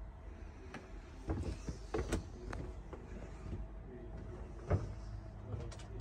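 Handling noise: scattered knocks and clicks over a low steady rumble, the sharpest knock near the end.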